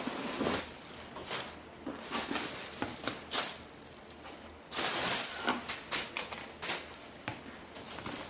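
Crinkly packing stuffing rustling and crackling in short bursts as it is pulled out of a leather tote bag, with a longer, louder rustle about five seconds in.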